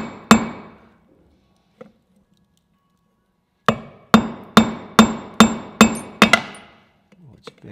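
Hand hammer striking a small hot hex bolt on a steel anvil, each blow ringing. One blow comes just after the start, then after a pause of about three seconds a run of about seven blows at roughly two a second, flattening the bolt head's sides to square it.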